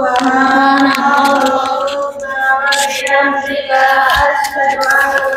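A class of students chanting a closing prayer together in unison, drawn out in long held notes with short breaks between phrases.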